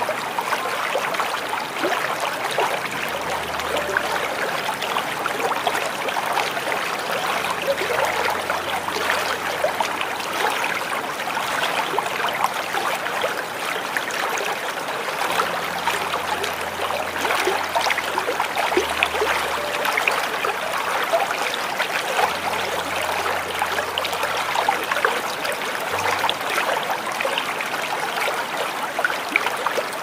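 Small waterfall running steadily, an even rush of splashing and trickling water. Faint low tones come and go underneath.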